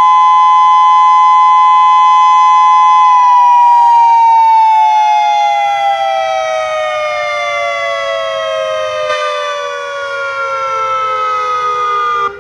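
Outdoor civil defense warning siren sounding its emergency alert test tone, a loud steady two-note chord. About three seconds in, the pitch begins sliding slowly downward, and the sound cuts off sharply near the end.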